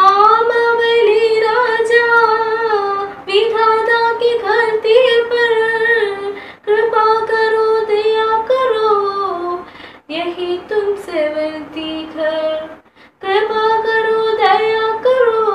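A girl singing solo and unaccompanied, reading the song from a sheet, in phrases of about three seconds with short breaks for breath between them.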